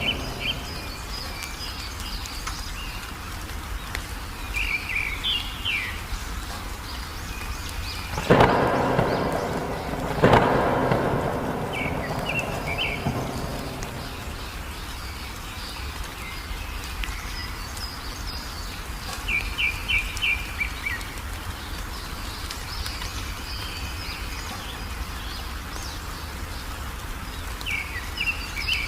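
Songbirds singing short, repeated chirping phrases over a steady hiss of rain, with two loud thunderclaps about eight and ten seconds in, each rolling off into a fading rumble.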